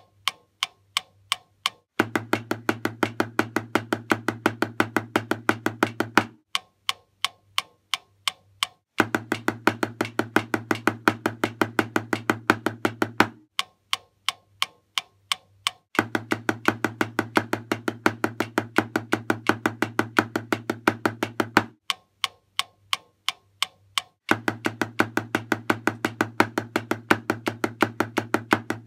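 Mechanical pendulum metronome ticking at 200 BPM, about three clicks a second, with four stretches of fast, even single strokes on a snare drum played along to it, separated by gaps of two to three seconds where only the metronome ticks.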